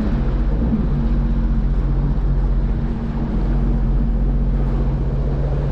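Sea-Doo personal watercraft engine running steadily under way, with a held low hum and a strong rumble. The level dips slightly about three seconds in.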